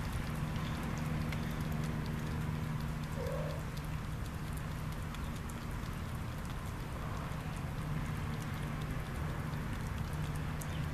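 A mother cat and her kitten chewing and smacking on canned tuna from a plate, a steady patter of small wet clicks, over a steady low hum.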